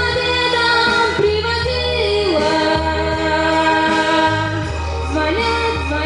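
A woman singing solo into a microphone over instrumental accompaniment with a steady bass line, holding long notes that bend in pitch.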